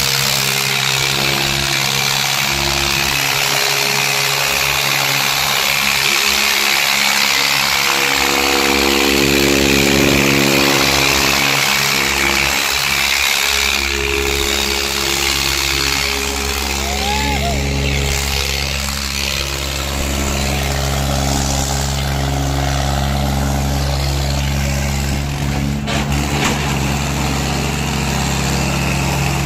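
Tractor's diesel engine idling steadily close by, holding one even pitch, with a steady hiss of noise over it.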